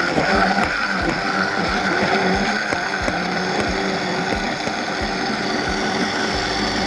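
Vitamix A3500 blender running at low speed early in its soup program, the motor whirring steadily, with irregular low knocks as the tamper pushes whole vegetables and cashews down into the blade.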